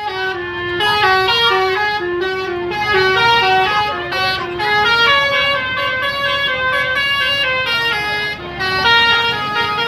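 Basuri (telolet) musical horn on an SJM Trans bus playing a melody: a run of steady horn notes stepping up and down in pitch several times a second, with longer held notes about halfway through.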